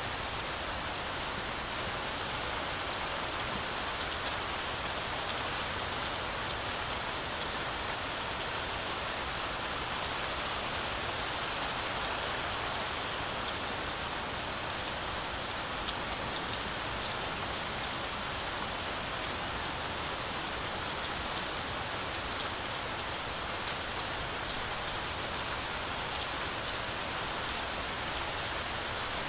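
Heavy, steady rain falling through a forest canopy, a dense even hiss of drops with faint scattered patters on leaves.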